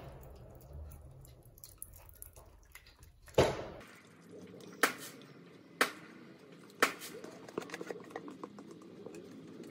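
Thick egg-and-milk custard mixture pouring and dripping from a plastic basin through a stainless steel mesh strainer into a pot. Four sharp knocks of utensils against the strainer or pot break in, the loudest about three and a half seconds in, followed by a few lighter clicks.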